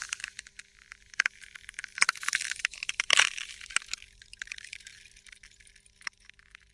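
Ice cracking: irregular sharp crackles and snaps, bunched into dense spells about two and three seconds in, then thinning to scattered ticks toward the end.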